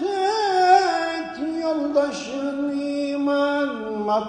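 A man's unaccompanied voice singing a melismatic Turkish Islamic devotional chant, holding long ornamented notes that step downward in pitch and break off just before the end.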